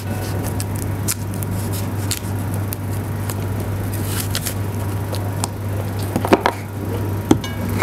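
Knife slicing a fresh apple into thin slices on a cutting board: scattered crisp cuts and taps of the blade against the board, a few sharper ones near the end, over a steady low hum.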